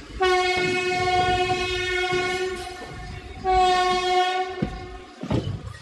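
WAP-4 electric locomotive's horn sounding two single-pitched blasts, a long one of about two and a half seconds and then a shorter one of about a second, over the low rumble of the running train.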